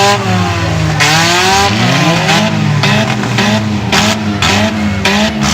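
Demolition derby car engines revving hard, their pitch climbing and falling. From about halfway a pulsing engine note repeats about three times a second.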